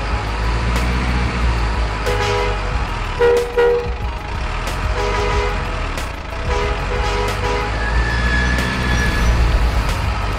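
Diesel truck engine sound running steadily under several short two-note horn toots, two of them in quick succession about three seconds in.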